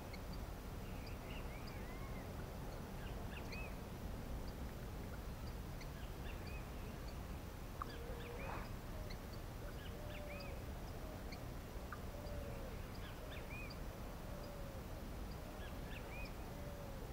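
Birds chirping and calling in short rising-and-falling notes. From about halfway on, a lower call repeats roughly once a second. Steady low background noise runs underneath.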